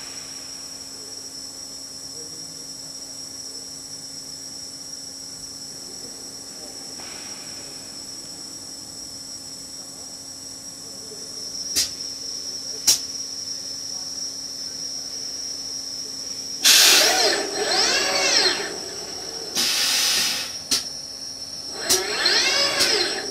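Steady hum of a robotic casting-deburring cell, with two sharp clicks about twelve and thirteen seconds in. From about seventeen seconds in come three loud, noisy bursts, each carrying a whine that rises and then falls.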